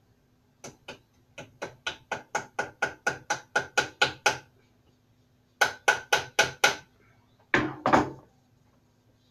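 Small nails being tapped into a wooden stool with a pair of pliers used in place of a hammer: quick, sharp metal-on-wood taps at about five a second, getting louder through a first run, a short pause, then a second run of five. Two heavier knocks follow near the end.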